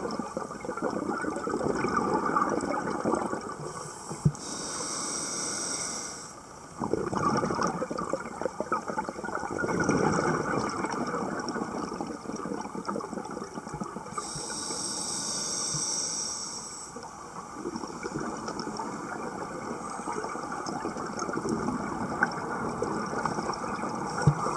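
Scuba diver breathing through a regulator underwater: long bubbling exhalations alternate with shorter hissing inhalations, slow breaths several seconds apart. A couple of sharp clicks, once near the start and once near the end.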